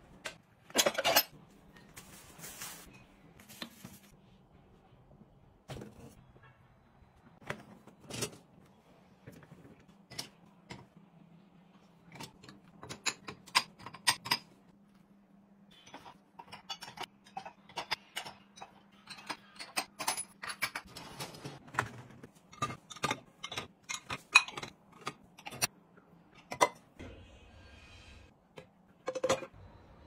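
Ceramic dishes, bowls and chopsticks clinking and knocking as crockery is gathered off a table and set into dishwasher racks, in many short, scattered clinks. A faint steady low hum runs underneath and fades about two-thirds of the way in.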